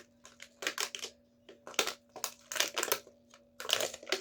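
Slime being squished and pressed by hand, giving irregular sticky clicks and pops in quick clusters, with short quiet gaps between.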